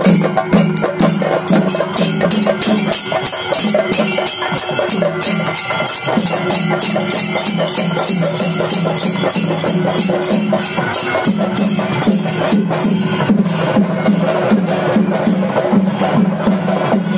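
A group of chenda drums beaten with sticks in a fast, dense, unbroken rhythm: Kerala temple percussion (chenda melam).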